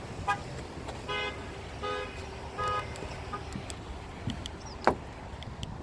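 Car's electronic warning chime beeping four times at an even pace, about three quarters of a second apart, followed near the end by a sharp click.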